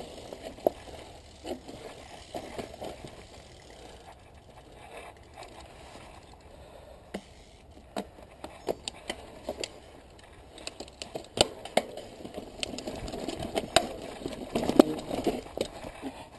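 Mountain bike crawling over loose rock, its tyres and frame giving scattered sharp clicks, knocks and rattles, which come thicker and louder in the last few seconds.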